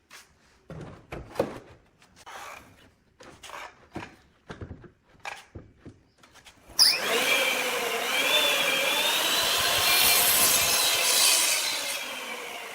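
Short, scattered scraping and knocking sounds. About halfway through, a homemade table saw starts up suddenly with a whining blade and a loud sawing noise through wood. Near the end its pitch falls slowly as the saw winds down.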